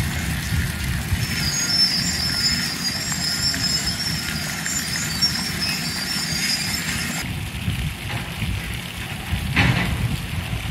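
Fountain spray splashing into its pool over a steady low outdoor rumble. The splashing drops away about seven seconds in, and there is a brief swish near the end.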